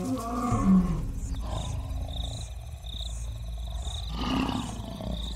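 Lion roaring: a deep call in the first second and another about four seconds in. Between the calls, insects chirp at a steady pace with high, regular chirps.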